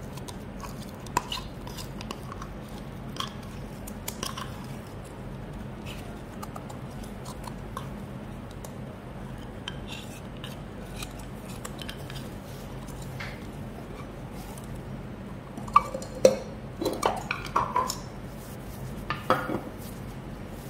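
Green cloud slime being stretched out of a jar and then squeezed by hand: scattered faint sticky clicks, then a run of louder pops and squelches in the last few seconds, over a steady low hum.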